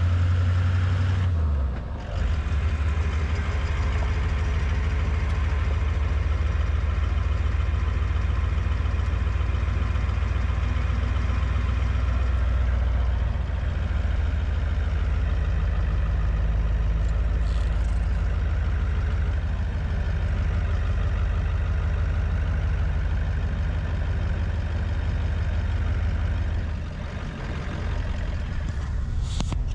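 A vehicle engine idling, a steady low hum with brief dips in level about two seconds in and again near the end.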